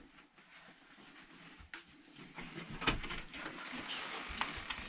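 People moving through a small indoor hallway: quiet at first with one sharp click about a second and a half in, then shuffling and rustling that grows louder, with a few knocks.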